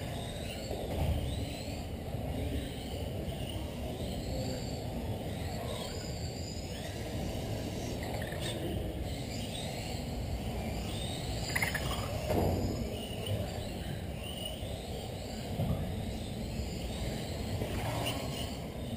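Several electric RC touring cars racing on an indoor carpet track: overlapping high motor whines that keep rising and falling in pitch as the cars accelerate and brake. One car swells louder as it passes close near the end.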